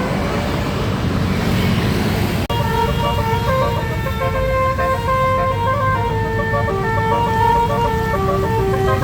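Engine and road rumble, then, after a sudden break about two and a half seconds in, a bus's multi-tone basuri air horn playing a tune of held, stepping notes over the engine noise.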